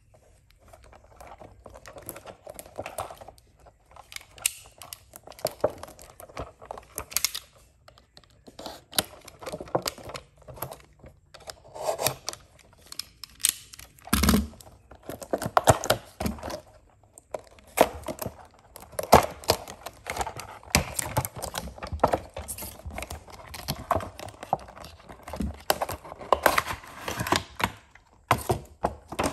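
Cardboard display box of a diecast model car being handled and opened: irregular taps, clicks and rustles of the box, with one louder thump about halfway through.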